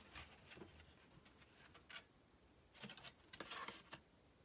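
Faint rustling of folded patterned paper being handled, a few soft scattered rustles with a busier stretch about three seconds in.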